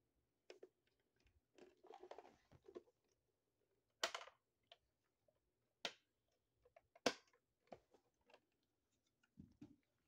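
Hard plastic parts of a Dirt Devil Swiftstick's clear dust cup being handled and fitted, making scattered light clicks and knocks. Three sharper knocks come at about four, six and seven seconds in.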